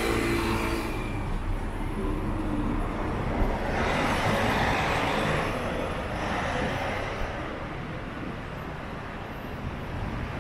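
Street traffic on a city shopping street, with a vehicle passing close by: its noise swells about three and a half seconds in and fades away over the next few seconds, over a steady low rumble.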